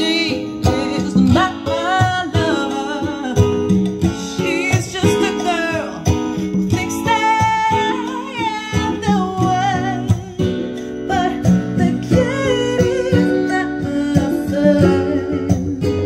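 A song with guitar and a singing voice, played back through a Denon PMA-480R integrated amplifier and loudspeakers and heard in the room.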